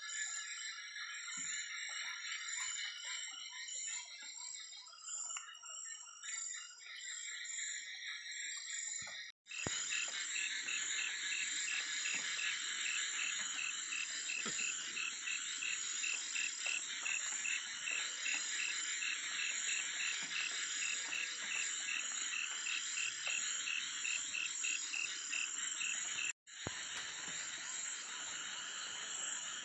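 Night chorus of frogs and insects: a dense steady trilling, with one call pulsing about twice a second through the middle. The sound cuts out abruptly twice for a moment.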